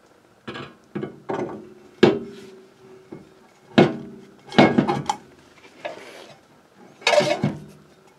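New cast-iron brake rotor being pushed and worked onto a car's front spindle: a series of irregular clunks, several of them ringing briefly, with a longer scrape about seven seconds in.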